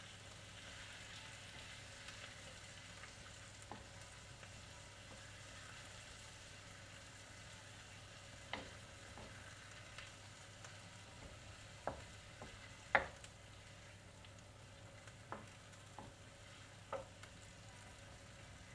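Chicken, bacon and onion sizzling in oil in a wok while being stirred with a wooden spatula. A faint steady sizzle, with the spatula knocking against the wok several times, the loudest knock about two-thirds of the way through.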